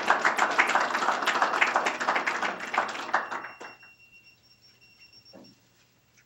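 Audience applauding at the end of a lecture, thinning out and dying away about three and a half seconds in. As the clapping fades, a faint, steady, high electronic tone sounds for about two seconds.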